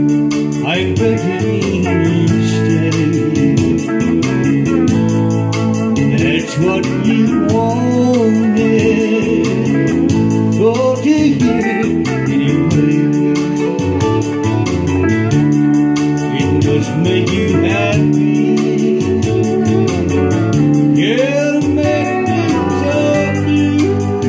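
Live country band playing an instrumental passage: pedal steel guitar with sliding, gliding notes over electric guitar and a keyboard with an organ sound.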